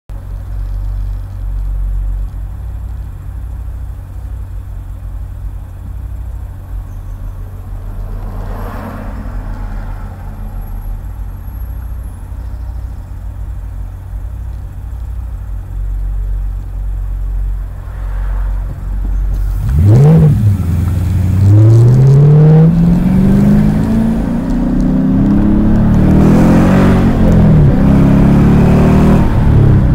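Car engine idling steadily, then pulling away about twenty seconds in and accelerating up a steep hill: the revs rise and drop several times as it changes gear.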